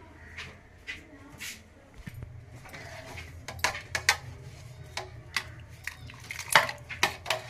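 A steel ladle clinking and scraping against a metal pot while stirring and scooping thick khees. The clinks come sparsely at first, then thicker and louder in the second half, with the loudest knock near the end.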